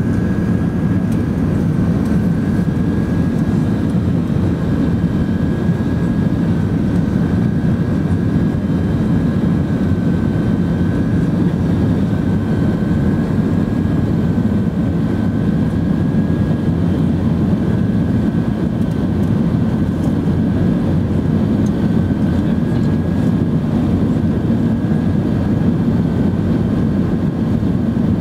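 Cabin noise inside an Airbus A380 climbing after take-off: a loud, steady low roar from its Rolls-Royce Trent 900 jet engines and the airflow over the fuselage, with a faint steady high tone on top.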